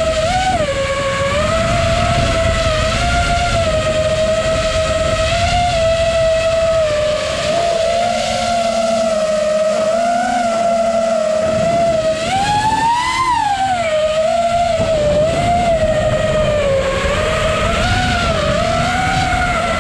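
FPV racing quadcopter's brushless motors and propellers whining, heard from the quad itself, the pitch wavering up and down with the throttle. About twelve seconds in the whine climbs sharply and falls back. A low rumble runs underneath and thins out around the middle.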